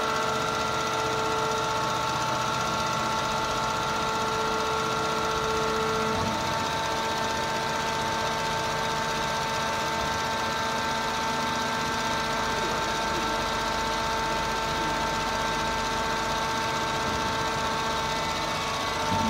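Horizontal bagging baler for wood chips running: a steady mechanical rattle with a steady whine over it. One higher part of the whine drops out about six seconds in.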